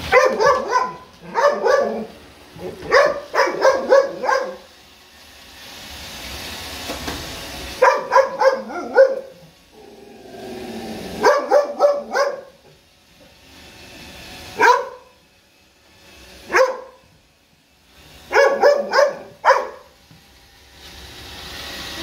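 A dog barking at a Roomba robot vacuum, in quick runs of several barks separated by pauses, with a few single barks in the middle.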